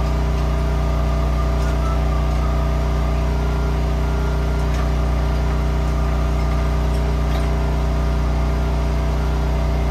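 A steady mechanical hum with a strong low drone, holding an even pitch and level, with a few faint ticks.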